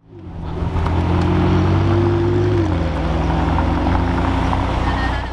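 Car engine running close by with a deep, steady note; its pitch rises slightly and then drops away about two and a half seconds in.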